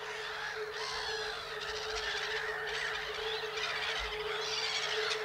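A chorus of waterbirds calling over one another, many short rising and falling calls at once, from a flock of northern lapwings and black-headed gulls on a fish-pond flat. A steady low hum runs underneath.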